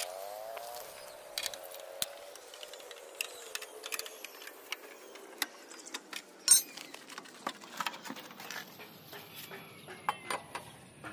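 Irregular metallic clicks and clinks of a tubular socket wrench and its tommy bar being worked on the bolt at a scooter rear shock's lower mount, with one louder clank about six and a half seconds in.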